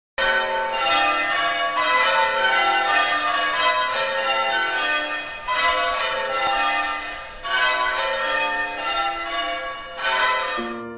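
Church bells pealing in rounds, each run stepping down the scale, with fresh loud peals starting about five and a half, seven and a half and ten seconds in.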